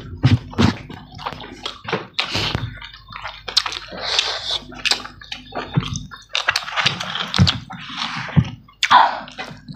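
Close-up wet eating sounds of people eating chicken and rice by hand: irregular chewing, lip-smacking and squelches, with short clicks.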